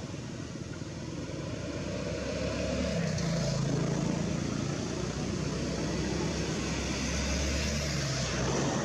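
Engine of a motor vehicle running nearby, a steady low drone with hiss that grows louder from about three seconds in and drops off near the end.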